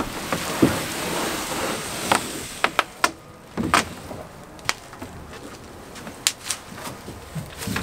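Plastic wrap and bubble wrap crinkling and rustling as a plastic fishing kayak is pulled out of its packaging, followed by a series of sharp, irregular knocks and taps of the hull being handled.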